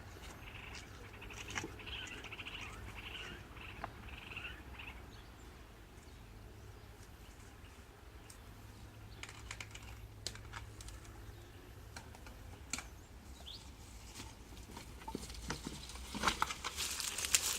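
Mountain bike clattering over loose rocks in a shallow river: scattered clicks and knocks, building to a busier run of clatter and hiss near the end. Birds chirp in the first few seconds.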